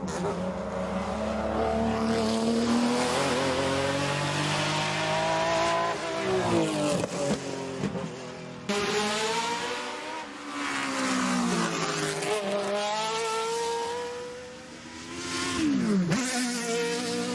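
Race car engines running hard, their pitch climbing and falling again and again as the cars accelerate, shift and pass, with a sudden change in the sound about nine seconds in.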